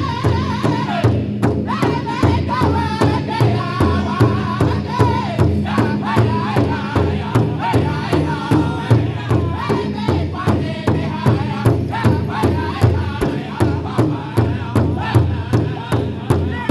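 Powwow drum group singing in high, strained voices over a steady, even unison beat on a large hide-headed powwow drum struck by several drummers at once.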